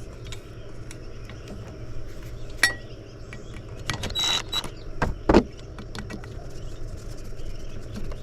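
Metal parts and hand tools clinking and clicking as parts are worked loose from an old radio chassis, with a short scrape about four seconds in and two louder knocks just after.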